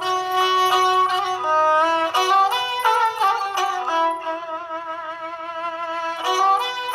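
Balochi sarinda (suroz), a bowed folk fiddle, playing a solo melody of quick short notes. About four seconds in it holds one softer, wavering note for about two seconds, then the quick notes return.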